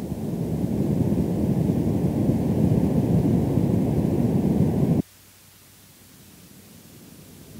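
Bass-band noise test signal (100 to 300 Hz) from a Dolby Stereo theatre's center loudspeaker, used to check speakers and power amplifiers: rattling or fuzzy sound would point to a damaged speaker, and clicks or dropouts to a weak amplifier. It swells up over the first second, holds steady, then cuts off suddenly about five seconds in, leaving faint film hiss, and the next burst begins to swell near the end.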